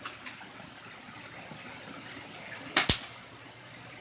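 Airsoft gun firing a single shot about three quarters of the way in: one loud, sharp snap. Two faint clicks come right at the start.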